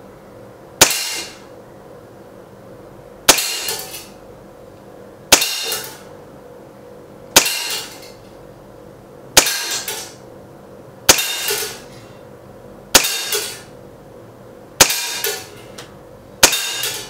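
Hellraiser M CO2 BB pistol, a Makarov replica with full blowback, firing semi-automatically. There are nine sharp shots about two seconds apart, each followed by a short ring.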